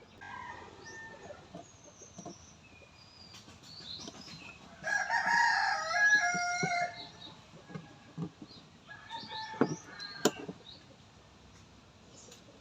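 A rooster crowing once, a long call about five seconds in, followed by shorter calls a few seconds later. A few sharp clicks come between the calls.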